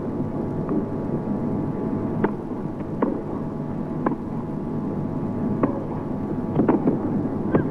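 Tennis rally: a ball struck by rackets and bouncing on the court, about eight sharp pops roughly a second apart, over a steady low murmur from the arena crowd.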